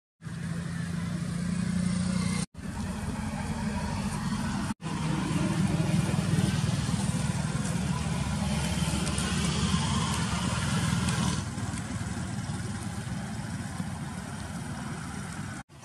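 Steady low rumble of road traffic. It cuts out abruptly for an instant twice in the first five seconds and again near the end.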